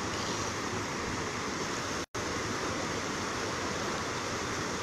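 Steady rushing of a flooded river's fast brown current, broken by a momentary gap in the sound about two seconds in.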